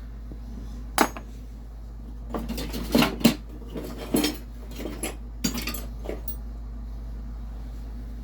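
Loose metal hand tools clinking and clattering as they are rummaged through and picked out of a box: one sharp clink about a second in, a cluster of knocks around three seconds, then lighter scattered clinks that stop about six seconds in. A steady low hum runs underneath.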